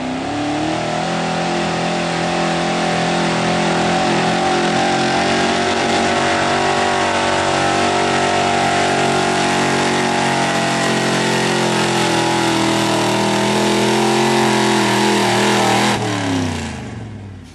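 Ford pickup's engine held at high revs under heavy load while it pulls a weight-transfer sled. About sixteen seconds in, the revs and loudness drop away as the driver lets off at the end of the pull.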